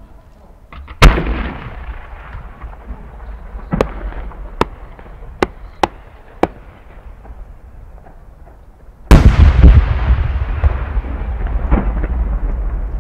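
A 10-inch (10-gō) Japanese chrysanthemum aerial shell is fired from its mortar with a sharp boom about a second in. Five small pops follow as the little bursts on its rising tail go off during the climb. Near nine seconds the main shell bursts with the loudest boom, and its rumble and echo roll on to the end.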